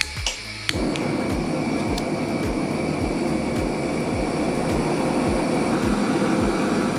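Piezo igniter clicks a few times, then the Snow Peak Yaen Stove Regy (bipod stove) canister gas burner lights just under a second in and burns with a steady rushing roar. Background music with a steady beat plays underneath.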